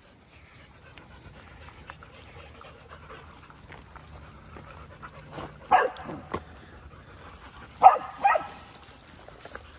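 A dog barking: a couple of short barks a little past halfway through, then two louder barks in quick succession about eight seconds in.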